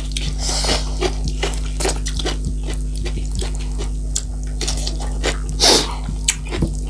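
Close-miked chewing of juicy fresh cucumber, with irregular wet crunches and mouth clicks over a steady low hum.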